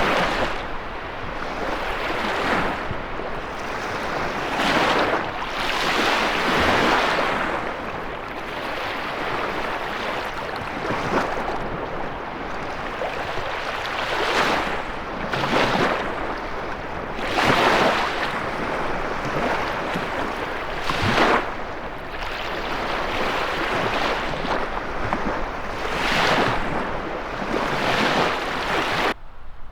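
Lake Michigan waves breaking and washing on the shore in strong wind, surging every two to three seconds. The sound drops off sharply near the end.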